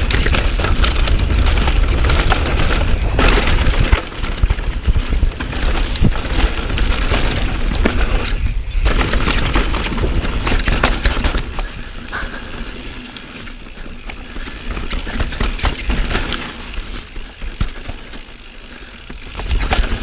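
Wind rushing over the action camera's microphone and mountain bike tyres rolling over a dry dirt trail, with rapid clicks and clatter from the bike over bumps. About eleven seconds in the wind and rolling drop off as the bike slows.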